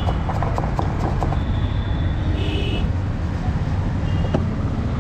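Steady rumble of street traffic, with light knife taps of coriander being chopped on a wooden board in the first second and a half. A short high beep comes about halfway through, and a brief one near the end.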